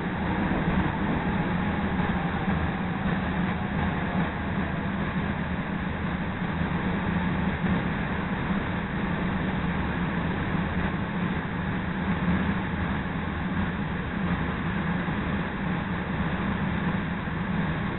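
CTA Red Line rapid-transit train running on the tracks, heard from inside the car: a steady rumble of wheels and motors.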